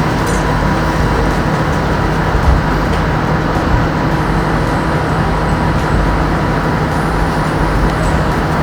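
Brema commercial ice maker running with a steady mechanical hum, its compressor and condenser fan working normally after the clogged condenser was cleaned.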